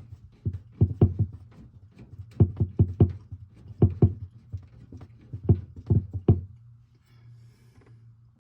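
Hand rivnut tool being unscrewed from a freshly set rivnut, giving sharp metal clicks and knocks in several short bursts over a steady low hum. The clicks stop about two seconds before the end.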